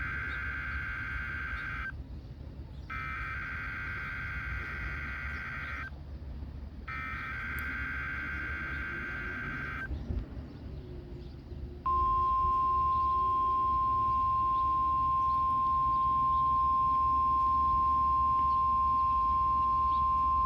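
NOAA Weather Radio Emergency Alert System test signal. It begins with three bursts of the warbling digital SAME header data tones, each about three seconds long. After a short pause comes the weather radio's steady warning alarm tone, one unchanging high pitch held for about nine seconds, with a low radio hum underneath.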